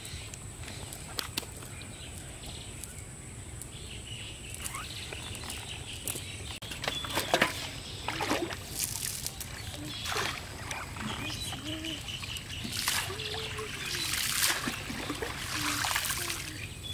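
Freshly caught fish flapping in a metal basin: several irregular short splashy bursts, starting about six seconds in.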